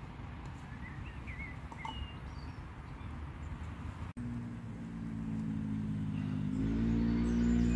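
Low, steady rumble of distant road traffic with a few bird chirps, cut off about four seconds in by background music of held notes that grows louder near the end.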